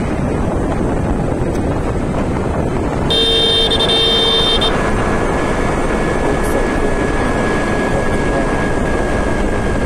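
Steady wind and road noise of riding a Honda Activa 6G scooter in highway traffic, with a vehicle horn sounding once for about a second and a half, some three seconds in.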